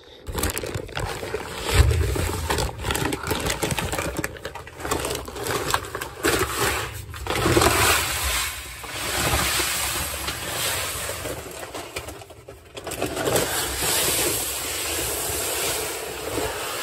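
A paper seed bag rustling and being handled as it is opened and tipped, then Dyna-Gro Rutledge wheat seed pouring out of the bag into a grain drill's seed box with a steady rushing hiss.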